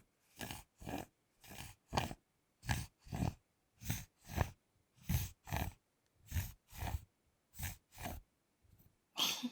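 Metal fork tines scraping across a thick chocolate bar in short, crunchy strokes, mostly in quick pairs a little over a second apart.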